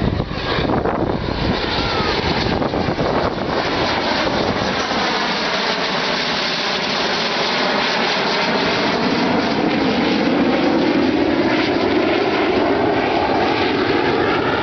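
A pair of Aero L-159 ALCA light combat jets flying past, the rushing noise of their single turbofan engines growing louder, with a phasing sweep that slides down and back up as they pass.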